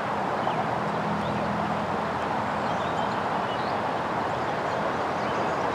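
Steady outdoor background noise, an even hiss-like rush, with faint short bird chirps scattered through it.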